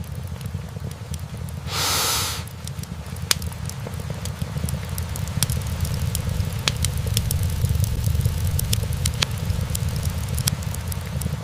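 Wood fire burning in a fireplace: a steady low rumble of flames with scattered sharp crackles and pops, growing more frequent after about three seconds. A brief hiss of about half a second comes about two seconds in.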